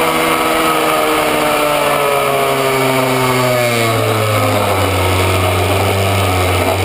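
Minimoto's small two-stroke engine heard from on board at speed, its note falling as the revs drop from about two seconds in, then holding steady at a lower pitch.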